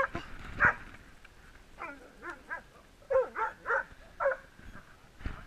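Dogs barking and yipping in rough play, a string of about nine short, excited calls in quick bursts.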